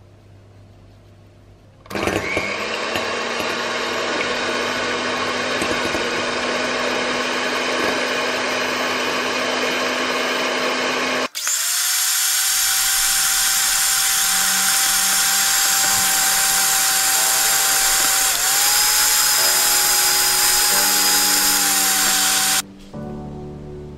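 Electric hand mixer beating egg whites for macaron meringue: a loud, steady motor whine with the beaters whirring in the bowl. It starts about two seconds in, stops briefly around eleven seconds, then runs again at a higher pitch until shortly before the end.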